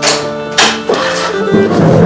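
Background music score: held instrument tones with sharp percussion strikes.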